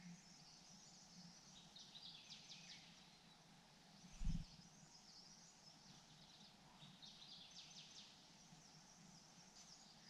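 Faint songbird song: a high, rapid run of chirping notes about two seconds in, repeated about seven seconds in. A single low thump falls about four seconds in.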